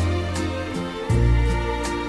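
Instrumental passage of a slow country ballad used as a soundtrack, with no singing: sustained chords over bass notes that change about every second and a half, with light cymbal ticks.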